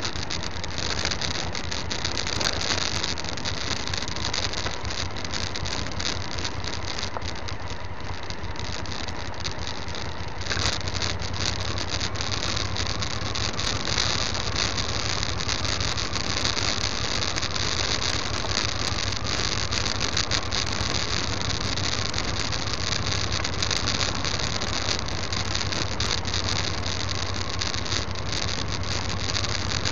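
Motorcycle riding on a loose gravel track: steady engine and road noise with many small clicks and rattles from stones under the tyres, getting louder about ten seconds in.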